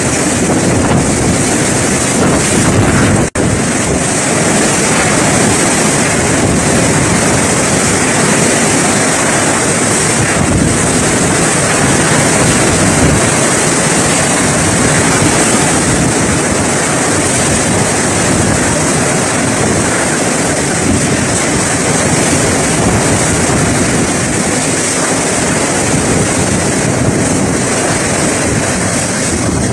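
Cyclone wind blowing hard and steadily in gusts, with driving rain, buffeting the phone's microphone into a dense rushing noise. It cuts out for an instant about three seconds in.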